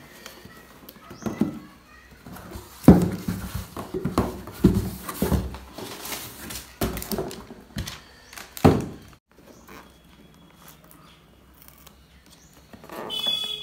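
Cardboard laptop box being handled, turned over and set down on a hard stone floor: a run of thunks and scrapes, the loudest about three seconds in and again near nine seconds, then a short rustle near the end.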